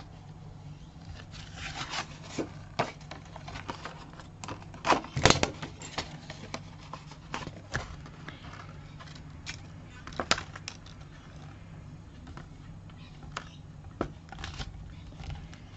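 Cardstock and paper being handled and pressed into place on a work surface: scattered light taps, rubs and rustles, the strongest about five and ten seconds in, over a steady low hum.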